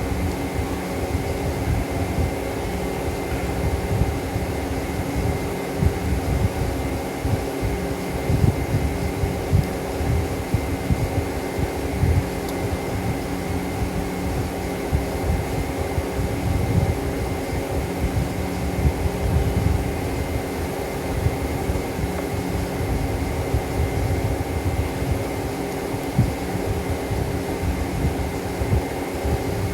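A steady machine drone: a low rumble with a constant hum of several steady tones over it.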